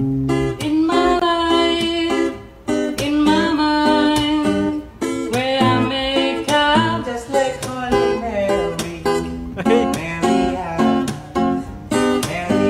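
Guitar played note by note in a melodic run, with a voice singing along.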